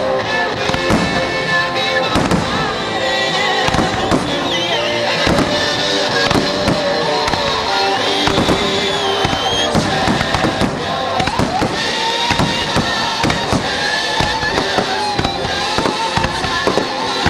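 Aerial fireworks going off in a dense barrage: rapid bangs and crackling, several reports a second, with music playing underneath.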